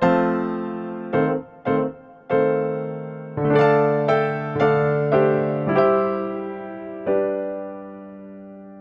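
Background music: a slow piano melody of single struck notes and chords, the last chord ringing out and fading near the end.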